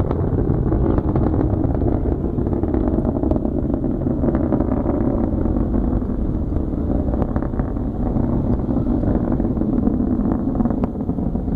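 A SpaceX rocket's engines heard from afar during ascent: a steady low rumble with a crackle in it.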